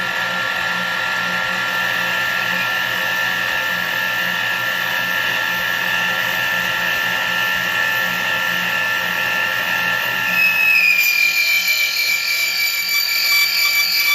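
Small lathe spinning with a steady motor whine while a boring bar cuts the inside of an aluminium ring. About ten seconds in, a loud, high squeal joins, wavering as it goes: the tool screaming in the cut, which the machinist puts down to chips getting stuck between tool and work.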